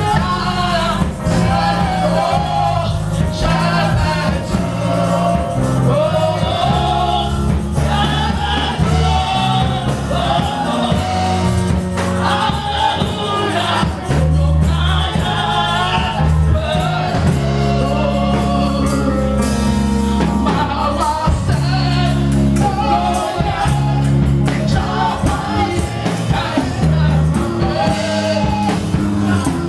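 Gospel music: voices singing a wavering melody over a loud, steady bass line.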